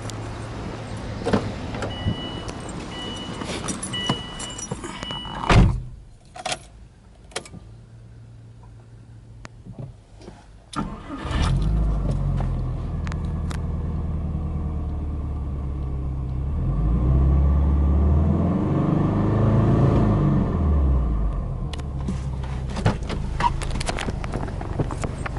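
A car door shuts with a heavy thump, then after a few clicks the Subaru Impreza S203's turbocharged 2.0-litre flat-four starts about eleven seconds in and settles into a fast cold idle. Midway it is revved up and down, free-revving in neutral, before dropping back to idle.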